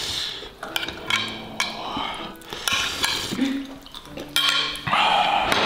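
Metal spoon scraping and clinking against a glass baking dish as sauce is scooped out: a run of sharp clicks and scrapes.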